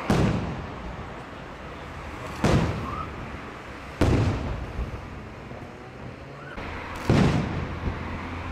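Coloured multi-break aerial firework shells from the 12th May Fireworks Factory bursting overhead. There are four sharp booms at uneven gaps, each trailing off in a rolling echo.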